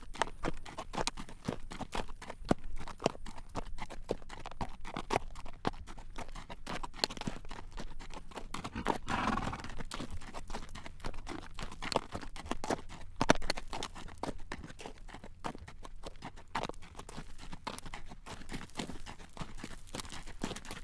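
Horse's hooves clip-clopping at a steady walk on a road as it draws a carriage, a regular run of sharp clacks.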